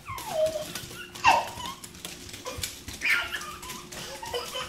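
Dog whining in three short high cries that slide down in pitch.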